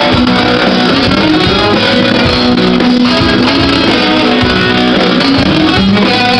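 Live rock band playing loud, with electric guitars over electric bass and drums.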